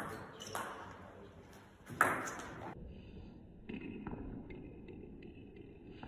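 Table tennis ball struck by rubber-faced paddles and bouncing on the table in a rally: separate sharp pocks, the loudest about two seconds in, with fainter taps in the later half.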